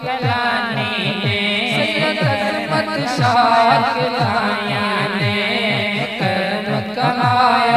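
Naat singing: a man's voice carrying a drawn-out melody into a microphone, over a fast, steady low drum beat of about three or four strokes a second.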